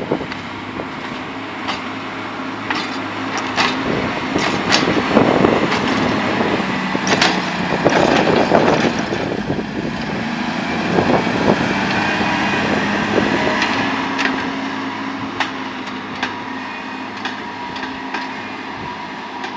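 JCB 416S wheel loader's diesel engine running and working under changing load as it pushes grass silage with a grass rake, its pitch rising and falling, with scattered sharp clicks and knocks.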